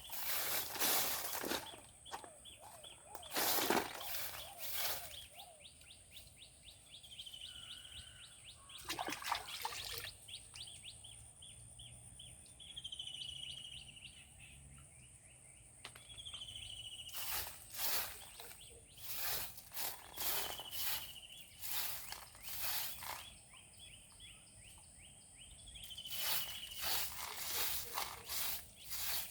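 A bird repeating a short, slightly falling whistled call every few seconds, over irregular loud scraping noises and a steady high-pitched whine.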